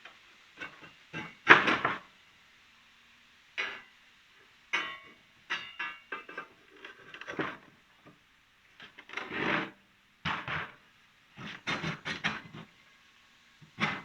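Irregular scrapes, knocks and rattles of steel parts being handled in short bursts with brief pauses, the loudest clatter about one and a half seconds in.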